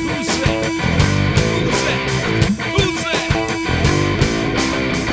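Rock song: electric guitar playing over a steady drum beat.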